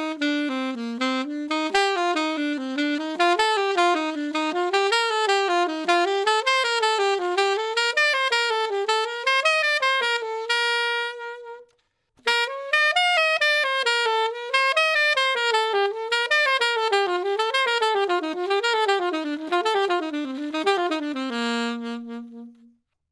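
Alto saxophone playing a fast eighth-note major-scale exercise with bebop articulation, tongued and ghosted notes in a doo-den-doo-dah pattern. The first line zigzags upward and ends on a held note about halfway through; after a brief pause a second line zigzags downward and ends on a held low note near the end.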